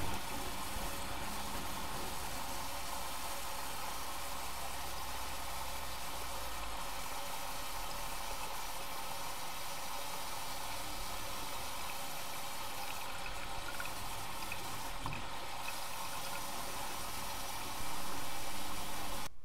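Bauknecht WAK 6950 washing machine filling with water: a steady rush of water flowing into the machine, a little louder near the end.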